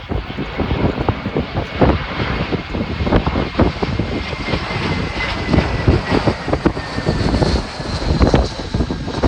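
Airbus A321-231 airliner on landing approach passing close by, its twin IAE V2500 jet engines giving a steady rush with a thin whine that slowly falls in pitch as it goes past. Gusty wind buffets the microphone throughout.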